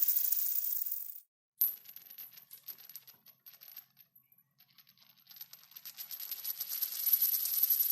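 A coin spinning on a hard surface. At first its wobbling rattle quickens and then stops suddenly as the coin falls flat. Just after, a fresh spin starts with a click, runs faintly, and from about halfway builds into a faster, louder metallic rattle as the coin slows and wobbles lower.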